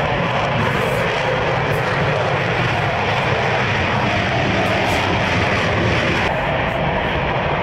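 Loud, steady fighter-jet engine noise, a takeoff sound effect played as a huge fart.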